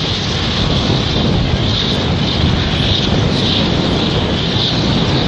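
Passenger jet airliner taking off, its engines giving a loud, steady rumble with a hiss on top that swells and fades a few times.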